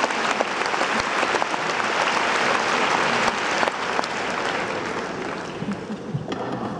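Large audience applauding. The applause is dense at first and dies away over the last few seconds.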